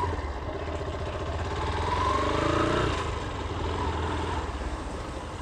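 Vehicle engine pulling away. Its pitch climbs for about two seconds, then drops back about three seconds in, over a steady low rumble.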